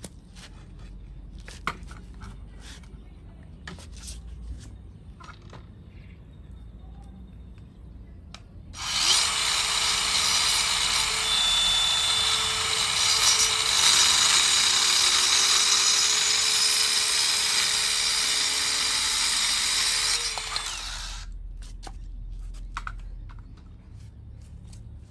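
DeWalt DCS571 cordless 4½-inch circular saw spinning up about nine seconds in, running for about twelve seconds as its blade cuts through a small thin slab, then winding down. Light handling clicks before and after.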